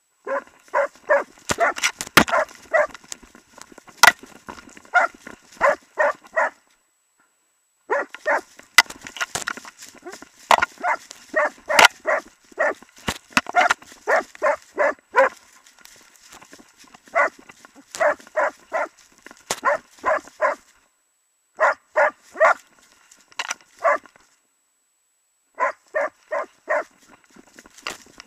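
Jämthund (Swedish elkhound) barking steadily at very close range, about two to three barks a second in runs broken by short pauses. This is bay barking, the dog holding a moose at bay. A few sharp knocks come through the camera worn on the dog.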